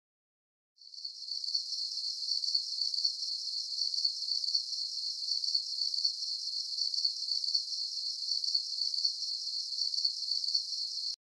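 Insects chirring in a steady, fast-pulsing high-pitched drone. It starts about a second in and cuts off suddenly at the end.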